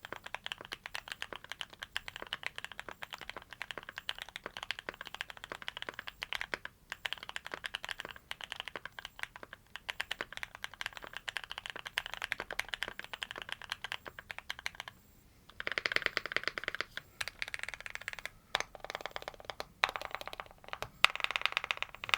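Keychron Q3 mechanical keyboard being typed on fast, a steady run of rapid keystrokes, with a few louder, denser flurries of keypresses in the last several seconds.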